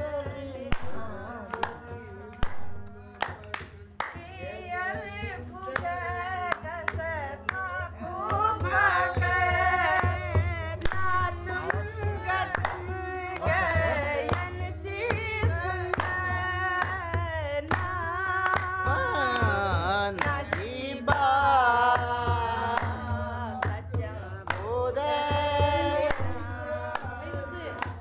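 A woman singing a folk song over her own dholak drumming, with clapping along.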